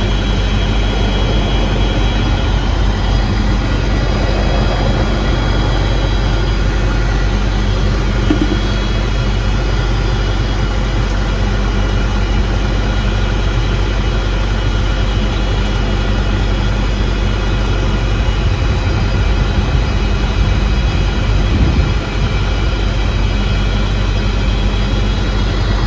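Large diesel engine running steadily at an even speed, with a deep, constant hum.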